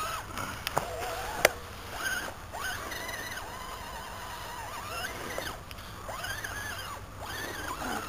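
Electric drive motor of an Axial SCX10 RC crawler whining up and down in pitch as the throttle is worked, in several surges of about a second each, with a few sharp clicks in the first second and a half.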